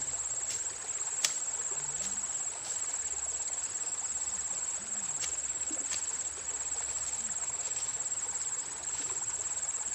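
Insects trilling steadily at a high pitch in an unbroken chorus, typical of crickets at dusk, with a few light clicks, the sharpest about a second in.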